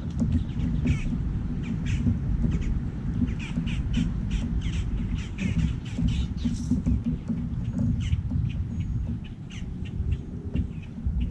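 A bird calling over and over in short calls, over a steady low rumble of wind on the microphone.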